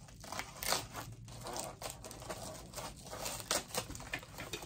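Scissors snipping through a parcel's wrapping in a series of irregular cuts, with the wrapping crinkling as it is handled.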